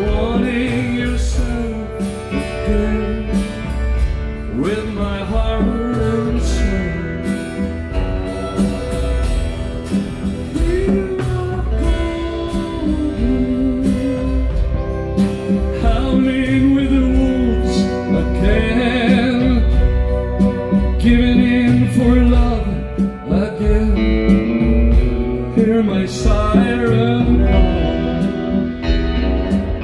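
Live band music: a man singing a melody into a microphone over strummed acoustic guitar and upright double bass, with a heavy low end throughout.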